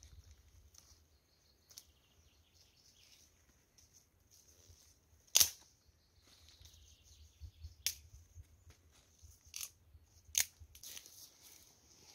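Dry twigs snapped by hand for fire kindling: four sharp cracks, the loudest about five seconds in, the others near eight, nine and a half and ten seconds, with light rustling of twigs and paper between.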